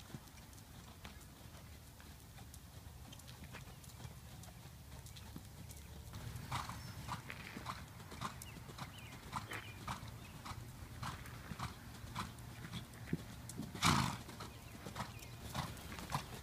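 Hoofbeats of a Thoroughbred mare trotting on sand arena footing: soft, regular strikes about two a second, faint at first and clearer after about six seconds. One louder brief noise comes near the end.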